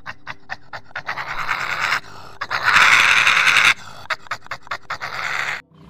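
An animal's rapid breathy huffing with quick clicks, about six or seven a second, and a louder breathy rush about a second long near the middle.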